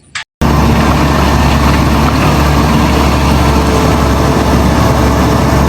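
Heavy bulldozer engine running steadily with a deep, even rumble. It cuts in abruptly about half a second in.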